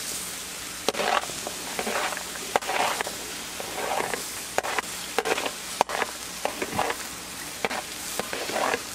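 Pork chops sizzling on a Blackstone griddle's hot steel top with a steady hiss, while a metal spatula scrapes diced squash and zucchini off a tray, giving irregular scrapes and clicks as the pieces drop onto the griddle.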